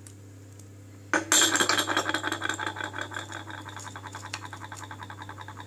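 A rapid rattling scrape that starts abruptly about a second in, loudest at its onset and slowly tapering off.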